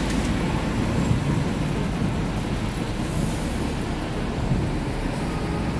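Steady low rumble of city street traffic, with bus engines running.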